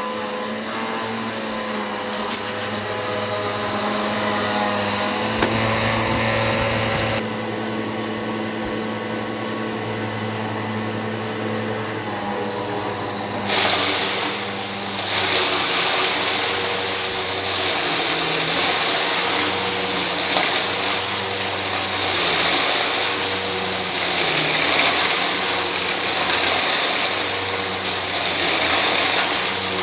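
Eureka PowerSpeed vacuum cleaner running steadily with a humming motor. About halfway through it gets louder and much hissier.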